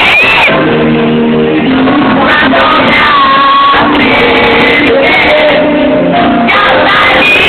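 Live pop music with singing over an arena PA at a sound check, with fans shouting and screaming over it. The recording is loud throughout, with held chords and high, sliding vocal lines.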